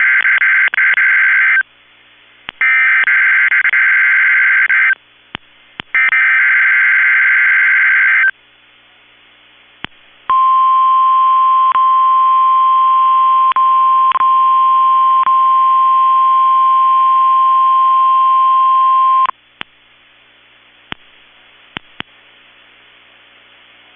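NOAA Weather Radio SAME alert header: three buzzy digital data bursts about a second apart, then the steady 1050 Hz weather radio warning alarm tone, held for about nine seconds before it cuts off, followed by faint static clicks. This is the warning alarm being activated for the weekly test of the warning system.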